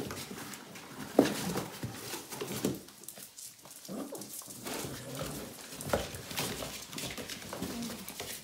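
Puppies play-fighting over a cardboard box: short yelps and whimpers mixed with knocks and scrapes of the cardboard, loudest about a second in and again near six seconds.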